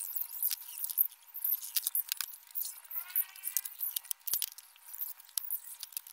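Quick, irregular light clicks and taps from handling plywood sheets and hand tools on a sawhorse table, with a short squeaky rising sound about three seconds in.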